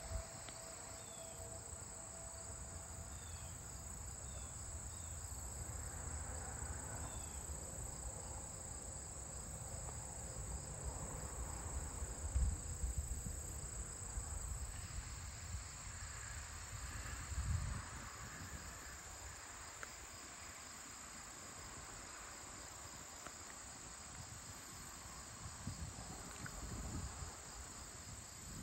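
Evening chorus of crickets and other insects, a steady high-pitched trill with a pulsing beat. A couple of brief low rumbles come through about twelve and eighteen seconds in.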